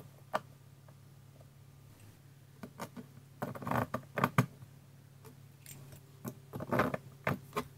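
Small clicks and metallic rattles of panel-mount push-button switches and their nuts being handled and fitted into holes in a plastic tool box, in two short clusters, over a steady low hum.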